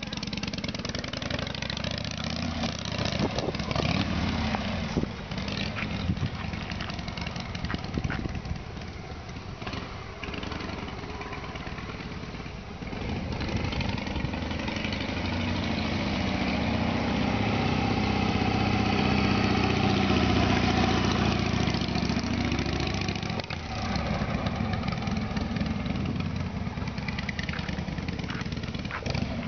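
Harley-Davidson V-twin motorcycle engine running as the bike pulls away and rides off down the street, swelling louder for several seconds partway through.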